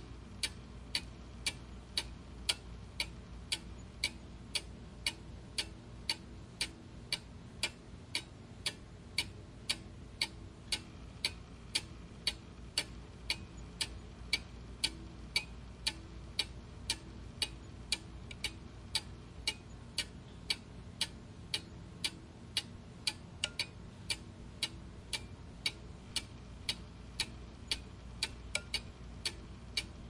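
Clock ticking steadily, about two ticks a second, over a faint low hum.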